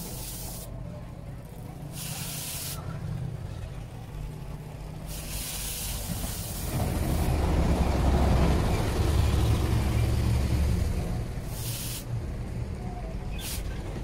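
Hot sugar-cane knife blade of chainsaw-bar steel hissing in short bursts as it is dipped into the quench trough again and again. A low rumble swells in the middle and is the loudest sound.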